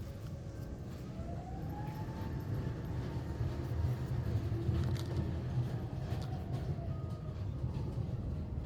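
Airport apron machinery running: a low, steady rumble with a faint whine that rises and falls, and a few light clicks.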